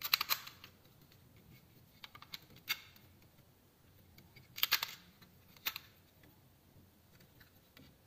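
Sharp plastic clicks and rattles from a universal travel adapter being handled, its sliding plug pins clicking as they are pushed out and locked. The clicks come in short bunches: right at the start, about two to three seconds in, and a loudest cluster near five seconds in.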